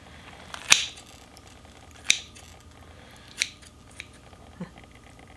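Kitchen scissors snipping through braised kimchi and pork-belly rolls in the pot: three sharp cuts about a second and a half apart, then two lighter clicks.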